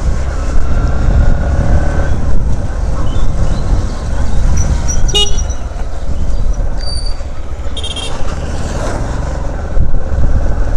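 Ride on a Bajaj CT 110's 115cc single-cylinder motorcycle, wind rumbling on the microphone over the engine. Two short horn beeps sound about five and eight seconds in.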